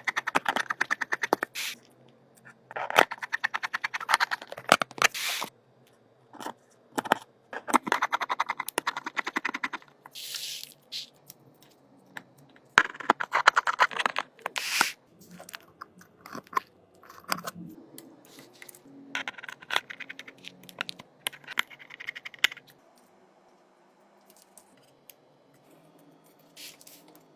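Rapid clicking, scraping and crinkling from a phone and its parts being handled, in bursts of one to two seconds with short pauses, growing faint for the last few seconds.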